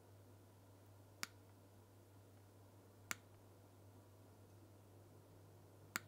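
Wire cutters snipping the excess Cat6 conductor ends flush at a toolless RJ45 connector: three short, sharp snips about two seconds apart.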